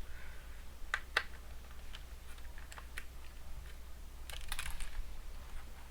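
Small, sharp clicks and taps of a small screwdriver and tiny screws being worked out of a laptop's screen panel, scattered singly at first, with a short quick cluster of clicks near the end.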